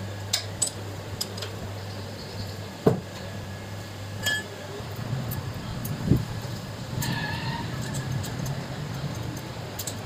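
Loose motorcycle cam timing chain and metal parts clinking and rattling as the chain is handled and threaded onto the crankshaft sprocket. Scattered sharp clinks, with a louder knock about three seconds in and a duller one about six seconds in.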